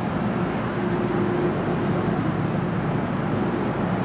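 Steady low rumble of an underground metro platform, with a faint humming tone running through it.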